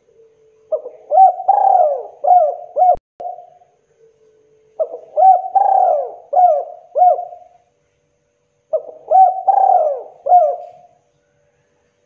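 Spotted dove cooing: three phrases of four or five coos each, separated by short pauses.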